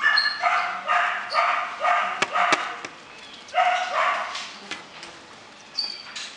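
Shiba Inu puppy barking: a quick run of about six short barks, a pause, then two more. Two sharp clicks come in the middle of the first run.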